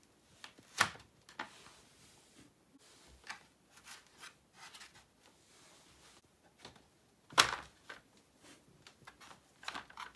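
Plastic circular cat track toy being played with: its ball rolling and rattling around the ring, with scattered knocks and taps on the plastic, two of them louder, about a second in and again near the end.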